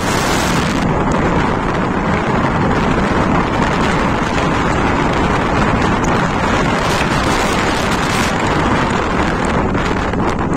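Loud, steady wind blowing across a phone's microphone, a continuous rushing noise heavy in the low end.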